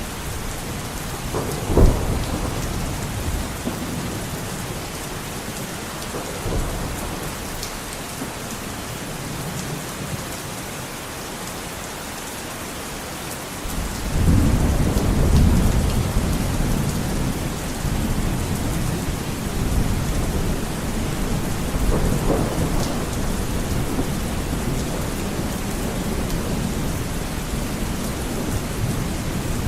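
Heavy rain beating steadily on a window pane, with wind. A sudden clap of thunder comes about two seconds in, and a long rolling rumble of thunder builds about halfway through, with a smaller one later.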